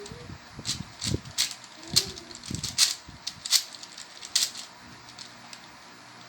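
Plastic Rubik's cube being turned by hand in a speed solve: irregular clicking and clattering of its layers, about seven clicks over the first four and a half seconds, with a few brief vocal sounds from a child early on.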